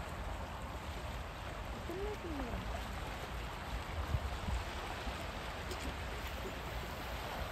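Steady outdoor wash of wind on the microphone and small waves lapping on the rocks of a seawall. A short, faint gliding sound comes about two seconds in.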